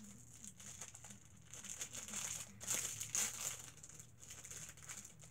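A packaged muffin's wrapper crinkling as it is pulled open by hand, in irregular bursts that are loudest about two and a half to three and a half seconds in.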